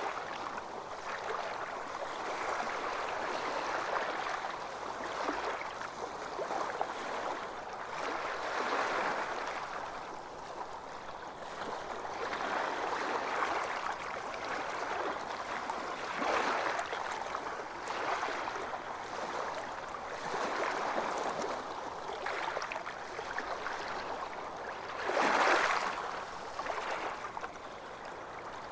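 Ocean waves washing onto a beach: a steady wash that swells and eases every few seconds, with one louder wave breaking near the end.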